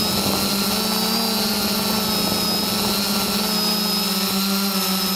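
Steady hum and whine of a camera drone's motors and propellers: a low buzz with higher whining tones above it that waver slightly in pitch as it hovers.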